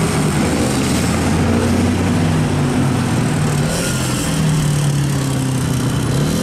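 Diesel engine of a MAN TGM fire engine pulling away, its engine note rising and dropping in steps.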